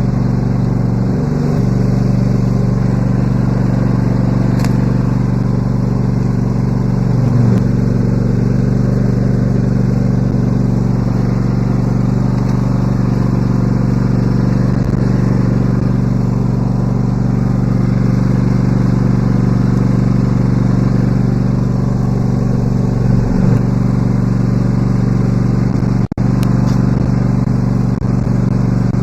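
Riding lawn mower engine running steadily at a constant speed, with a few brief dips in engine speed.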